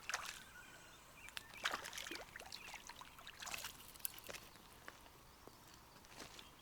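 Irregular small splashes and trickling water around a freshly landed trout, with scattered light clicks.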